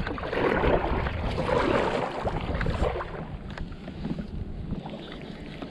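Water splashing and lapping around a kayak, with two louder swells of splashing in the first three seconds, over a steady low rumble of wind on the microphone.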